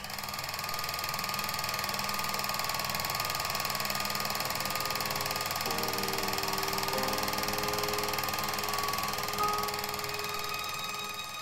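Film projector running: a steady, rapid mechanical clatter of the film transport. Faint held tones come in about halfway through.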